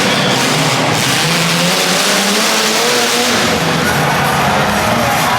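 Demolition derby car engines running loudly and revving up and down.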